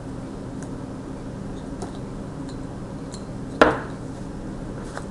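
Light clicks and taps of board-game pieces being handled on a table, with one sharp louder knock about three and a half seconds in.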